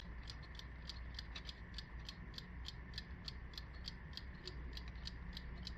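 Wind-up mechanical alarm clock, a Soviet Vityaz from the Rostov clock factory, ticking faintly and evenly at about five ticks a second as its escapement runs.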